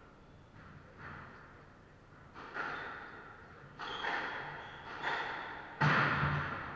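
Squash rally: a series of sharp hits of racket and ball against the court walls, roughly a second apart, each ringing on in the enclosed court. The loudest comes near the end.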